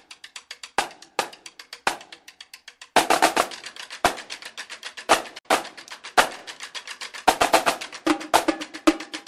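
Drumline cadence: snare drums play quiet, fast strokes with a few loud accents, then the full drumline comes in loudly about three seconds in. Near the end, pitched drums join the snares.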